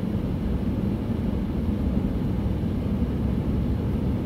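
Steady low engine and road drone inside a truck cab while driving.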